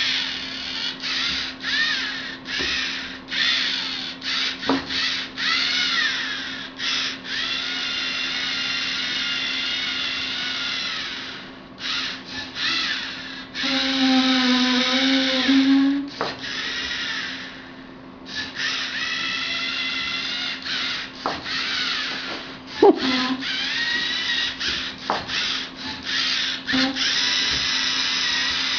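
LEGO Mindstorms NXT servo motors whining as the robot drives and draws. The whine comes in many short stop-start bursts, with several longer steady runs and a few brief pauses between them.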